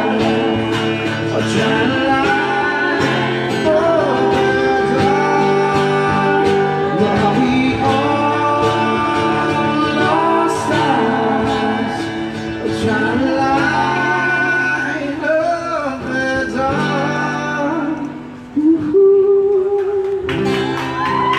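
Live acoustic guitar and vocals: a man sings while strumming an acoustic guitar, with two women singing along into microphones. Near the end the voices settle on one long held note.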